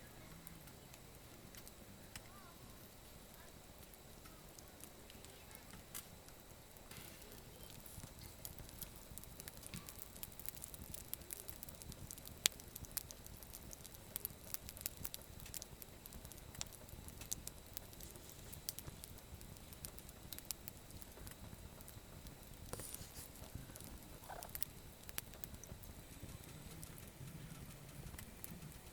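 Campfire of scavenged firewood crackling, with irregular sharp pops and snaps over a faint hiss. The pops come thickest through the middle stretch.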